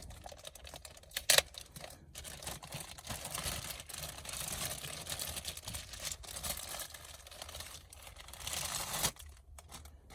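Plastic wiring harness plugs and cables being handled and fiddled with: a dense run of rustling and small clicks, with one sharp loud click about a second in, stopping suddenly near the end.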